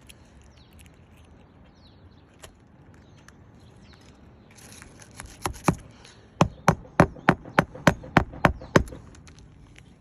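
Hammer driving roofing nails into an asphalt shingle: two light taps, then a quick run of about nine sharp, even blows, roughly three a second.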